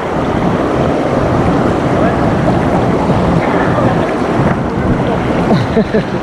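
Steady loud rush of water from a small waterfall and the fast current below it.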